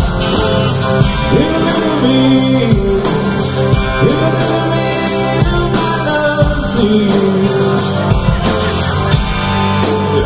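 Live band playing with a lead vocal: a male singer over strummed acoustic guitars, bass and drums, loud and steady.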